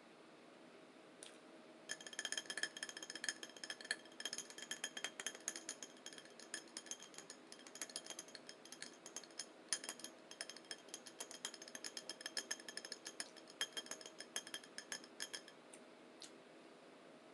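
A metal utensil clinking rapidly and repeatedly against a ringing dish or cup, starting about two seconds in and stopping near the end.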